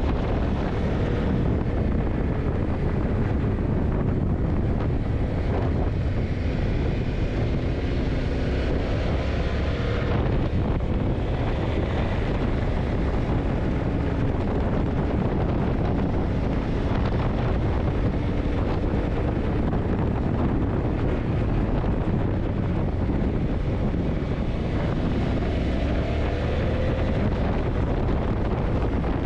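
Yamaha TDM900's parallel-twin engine running while riding, its pitch drifting gently up and down with the throttle, with wind noise over the microphone.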